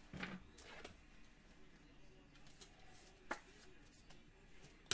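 Faint rustling and crinkling of clear plastic card sleeves and wrapping as trading cards are handled. There are a few light clicks, a sharper one a little over three seconds in and the loudest at the very end.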